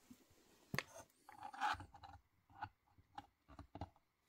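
Small handling noises as a miniature shelf panel is fitted into a diorama store model: a sharp click, a brief scraping rub, then several light taps.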